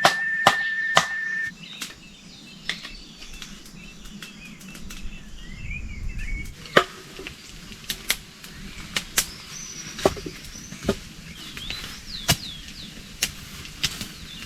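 Campfire crackling, with sharp irregular pops and snaps, while birds chirp. A steady high tone with clicks cuts off about a second and a half in.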